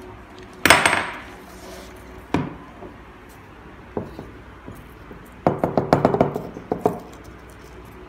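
Glass jars knocked and tapped against a table to empty ground coffee out onto paper: one loud knock about a second in, two lighter knocks, then a quick run of taps and clinks in the second half.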